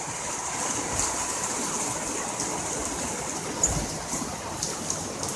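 Heavy rain mixed with hail pouring down: a steady rushing hiss with scattered sharp ticks. A dull thump comes about two-thirds of the way through.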